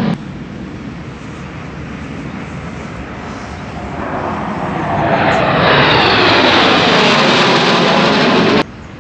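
Formation of fighter jets flying past: steady jet noise that swells about halfway through and grows loud, its pitch sliding downward as they pass over, then cuts off abruptly near the end.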